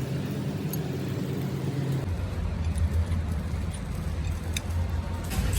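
A machine running with a steady low hum that drops lower about two seconds in, with a few light ticks over it.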